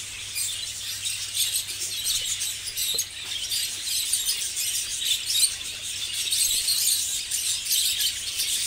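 A flock of budgerigars chattering: a dense, continuous mass of high-pitched chirps and twitters from many birds at once.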